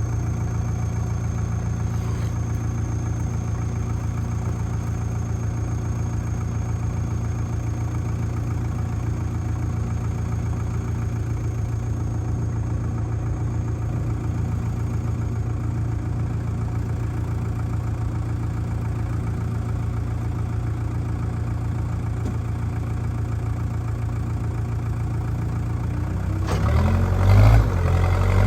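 Diesel engine of a JCB backhoe loader idling steadily, then revving up about two seconds before the end, its pitch rising and falling.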